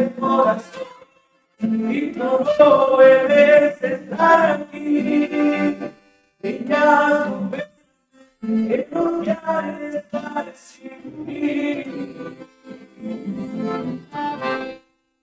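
Live norteño-style group music: male voices singing together over an accordion and acoustic guitars. The music breaks off to silence a few times for a moment and stops near the end.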